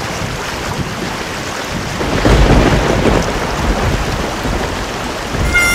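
Heavy rain falling steadily, with a low rumble of thunder swelling about two seconds in.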